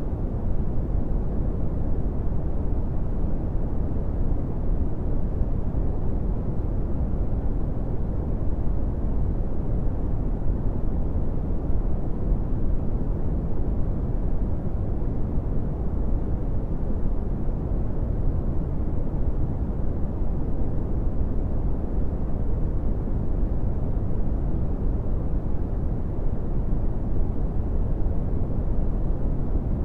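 Brown noise: a steady, even rumbling hiss with its weight in the lows and little treble, unchanging throughout.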